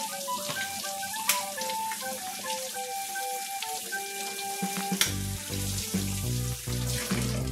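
Tap water running and splashing onto a metal baffle filter in a stainless-steel sink as it is rinsed, under background music with a stepping melody; about five seconds in, a deeper pulsing bass beat joins the music.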